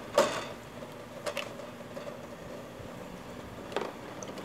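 Metal tongs clinking against a steel pot and the parts in it: one sharp clink just after the start, then two fainter clicks, over a faint steady hiss.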